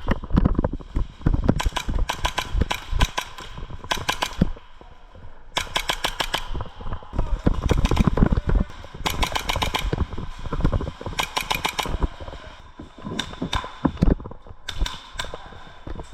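Airsoft guns firing in repeated rapid bursts of sharp snapping shots, with short pauses between bursts.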